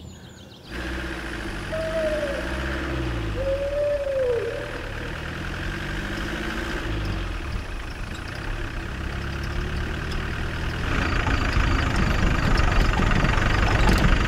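A vehicle's engine running as it drives, its pitch rising and falling; it starts abruptly about a second in and grows louder near the end.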